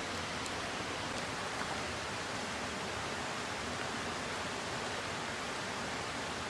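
A mountain stream rushing steadily.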